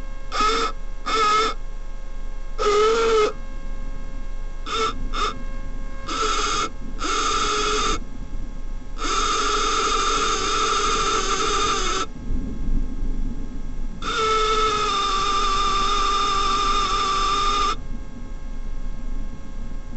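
Small electric pan-and-tilt motors of a remote-control magnetic roof spotlamp whining as the lamp is moved about: a run of short stop-start bursts, then two longer runs of about three seconds each, over a low steady hum.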